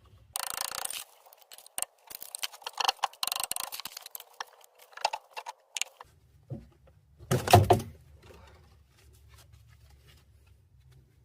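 Metal tools and suspension parts clinking and scraping in irregular bursts, with one loud knock about seven and a half seconds in, over a low hum in the second half.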